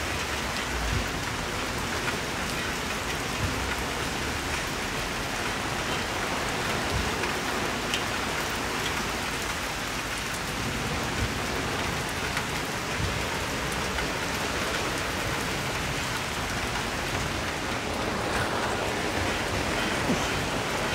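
Heavy rain falling steadily, a continuous hiss of a downpour on a wet lane and the surrounding plants.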